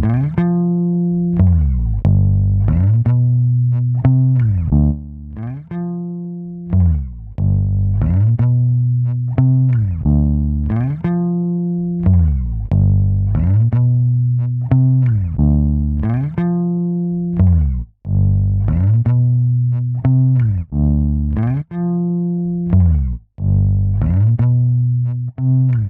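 Electric bass guitar playing a riff of held notes joined by sliding glides, through a compressor with its gate engaged; toward the end several notes cut off sharply.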